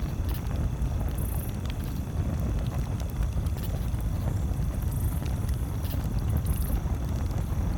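Campfire crackling, with scattered sharp pops, over a steady low rumble. A few brief high-pitched trills come and go.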